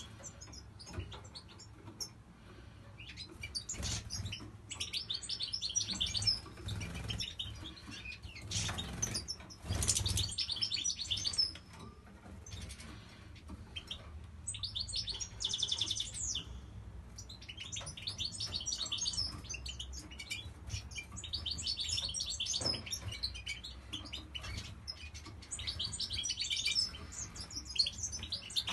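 Caged goldfinches twittering in bursts of quick, high chirps every few seconds, with short flutters of wings among them.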